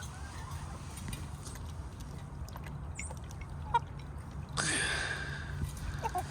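Backyard poultry flock milling about, with faint scattered clicks and one harsh call lasting about a second near the end.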